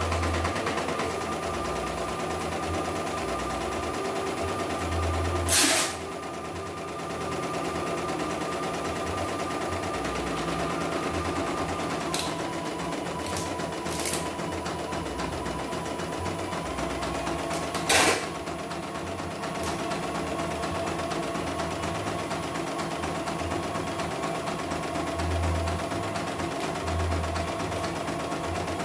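CNY E900 computerized embroidery machine stitching a test design, its needle and hoop-carriage mechanism running steadily with no trouble. Two sharp clacks come about 6 and 18 seconds in, with a few lighter clicks between them.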